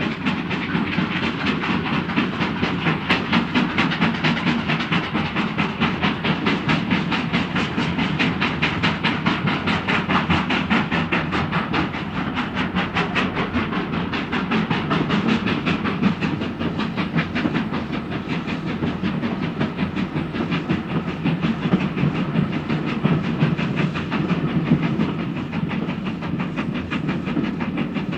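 Steam train running steadily, with a fast, even rhythmic beat throughout.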